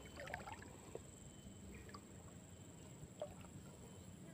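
Near silence with a few faint clicks.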